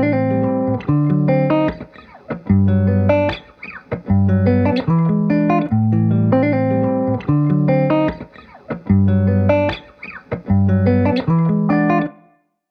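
Instrumental background music with a repeating pattern of pitched notes over a bass line, stopping abruptly near the end.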